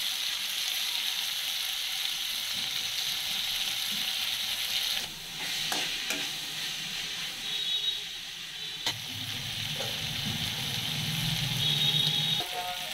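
Onions, green chillies, tomatoes and dal sizzling steadily in hot oil in an aluminium kadai. A steel spatula scrapes and clicks against the pan now and then.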